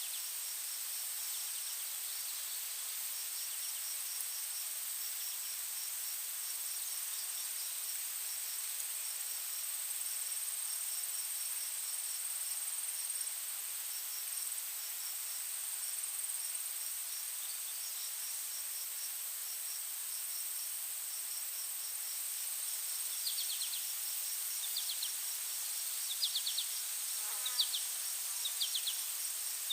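Insect chorus: a steady high trill under the rapid, rhythmic pulsing chirps of crickets. In the last quarter, short repeated chirps join in, a little louder than the rest.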